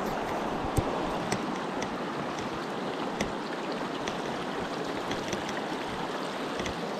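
Shallow, rocky river rushing steadily over stones, with a few sharp clicks scattered through it, the loudest about a second in.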